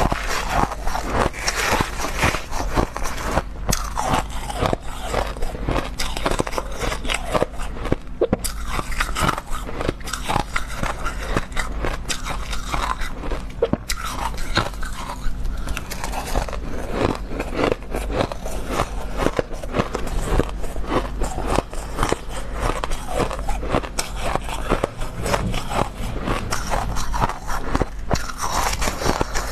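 Close-miked crunching and chewing of mouthfuls of crushed freezer ice, mixed with a metal spoon scraping and scooping through the ice in a metal bowl: a dense, continuous run of crisp crackles.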